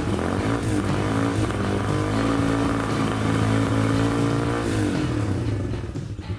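Quad bike (ATV) engine running steadily, just started by jump start from a flat battery. About five seconds in its pitch drops, and then the sound fades out.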